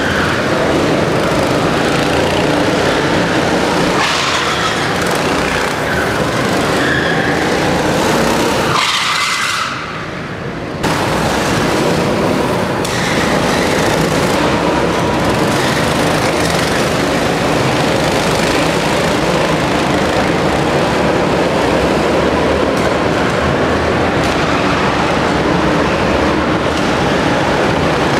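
Go-kart engines running and revving as karts lap an indoor track, a continuous dense engine noise that briefly drops in level about ten seconds in.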